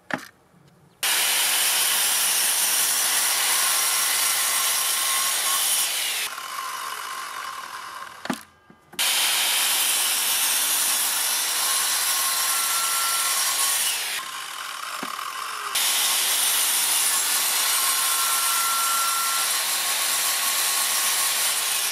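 Parkside PZKS 2000 B2 sliding compound mitre saw, with a 24-tooth blade, cutting a melamine-faced chipboard panel in loud, steady runs. It starts abruptly about a second in, eases twice, and stops briefly about halfway through.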